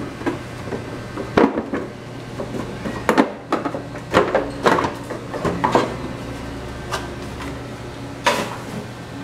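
Hard plastic keyboard casing being handled and pulled apart: a string of irregular knocks and clacks as the bottom shell is lifted off the top housing, over a steady low hum.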